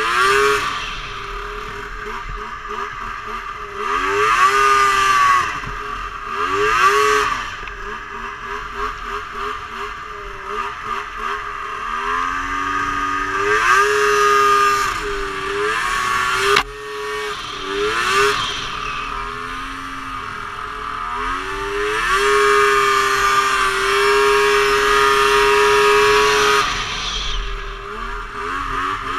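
Snowmobile engine riding through deep powder, revving up and down with the throttle so its pitch rises and falls again and again, then holding steady at high revs for several seconds near the end. A sharp click a little past halfway.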